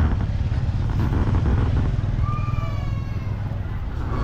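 Busy street-market noise: a steady low rumble, with a raised voice calling out briefly about halfway through.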